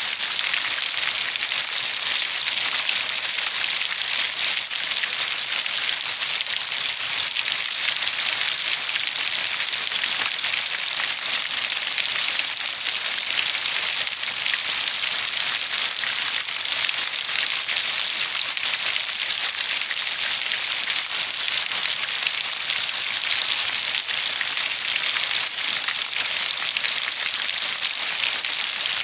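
Steady rainfall: an even, dense hiss of drops with fine pattering, unchanging throughout.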